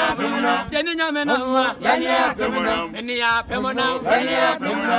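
A small mixed group of men and women singing together unaccompanied, in the manner of a chant.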